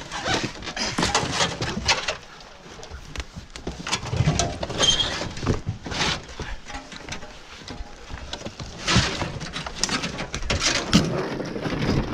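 Irregular knocks, scrapes and clatter of RV trailer wreckage being handled and shifted.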